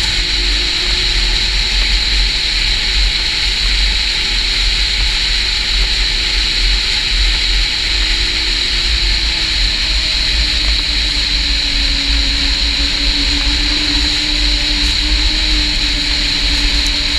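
Snowmobile running at speed on a trail: a steady engine drone whose pitch wavers and settles a little lower about nine seconds in, under a strong steady high hiss and the low rumble of wind buffeting the microphone.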